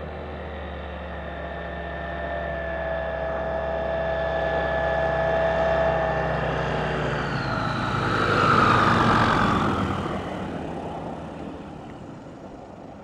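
SAM LS light aircraft's propeller engine at high power during a short-hop takeoff run on a flight test. It grows louder as the plane comes closer and is loudest about eight seconds in, when its pitch drops as it passes. It then fades as the plane moves away.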